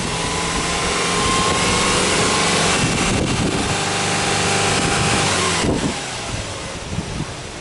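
Subaru Legacy 2.5GT's turbocharged flat-four engine revved in neutral: the pitch climbs over the first couple of seconds, holds at raised revs, then falls back toward idle when the throttle is released near the end.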